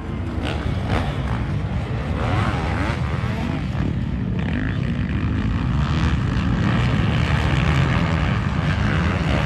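Motocross dirt bike engines running on the track, revving up and down as the bikes race.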